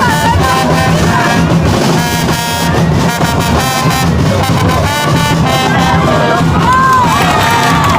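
Loud music with brass instruments, with voices mixed in.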